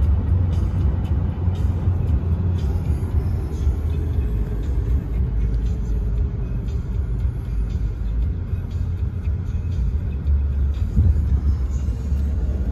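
Steady low road and engine rumble heard inside a car's cabin while it drives at highway speed.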